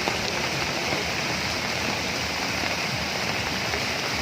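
Heavy rain falling, a steady even hiss without a break.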